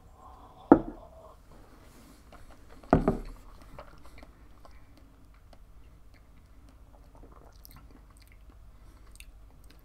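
Faint wet mouth sounds of a person tasting a sip of whisky, working it around the mouth, with two sharp knocks, one just under a second in and one about three seconds in.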